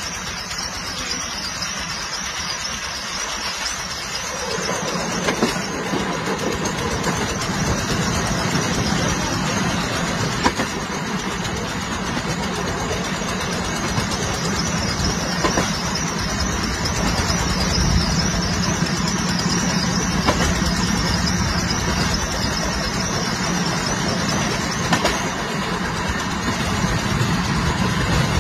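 Train running along the track: a steady rumble of wheels on rails, growing louder about four seconds in, with occasional sharp clicks.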